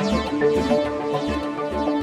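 Organic house music: electronic dance track with a steady kick-drum beat and sustained synth and melodic tones.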